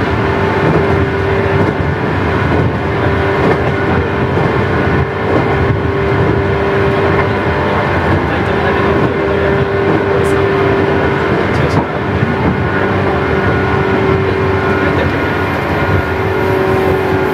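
A JR 117 series electric train running at a steady speed, heard from inside the passenger car. The rumble of wheels on rail carries a steady hum from the traction motors and gears, with a couple of faint clicks.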